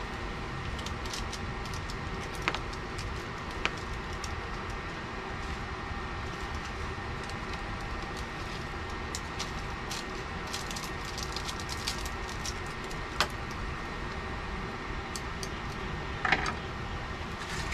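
Seasoning packets being torn and emptied into a pot of simmering instant noodles: scattered light crinkles and ticks over a steady low rumble, with about four sharper clicks.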